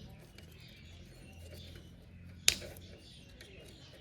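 One sharp click about two and a half seconds in, over faint handling noise, as a knife works at the plastic zip tie binding the taillight wiring.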